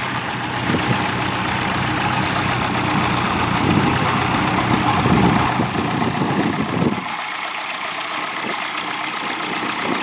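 Grey Ferguson tractor's engine running steadily as it pulls a plough. About seven seconds in, the deep low rumble drops away suddenly.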